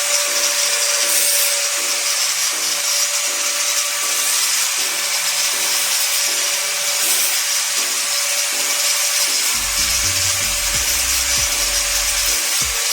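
Angle grinder fitted with a sanding pad running steadily against pallet pine, a constant hiss of abrasive on wood over the motor's whine. Quiet background music plays underneath, its bass coming in near the end.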